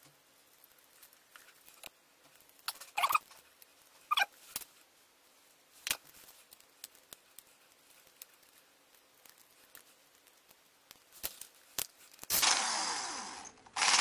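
Small clicks and rustles of copper wires being handled and bent, with a couple of short squeaks a few seconds in. About twelve seconds in, a cordless drill runs briefly and winds down, then runs again near the end.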